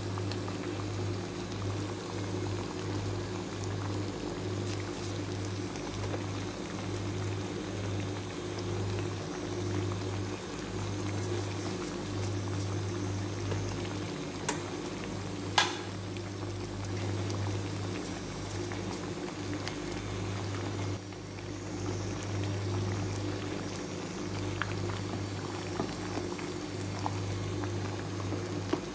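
Thick, milky chicken-pastel sauce bubbling at a simmer in a stainless steel pot, as it cooks down and thickens. A steady low hum runs underneath, and a single sharp click sounds about halfway through.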